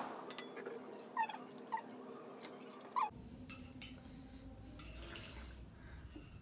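Spoons and a ladle clinking against metal pots and bowls as food is served and eaten, with a few short high chirps in the first three seconds.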